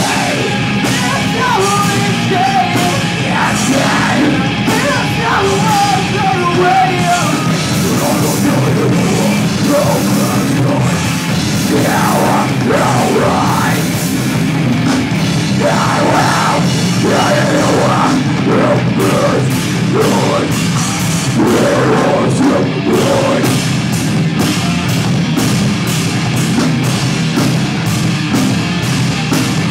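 Live rock band playing loud, with electric guitars and a drum kit, and a vocalist singing and shouting. About two-thirds of the way through, the drums settle into fast, even strokes.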